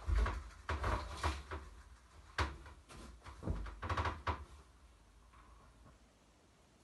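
Knocks and thuds on a wooden desk as a person climbs onto it and shifts into a sitting position. There are several knocks in the first four and a half seconds, then it goes quiet.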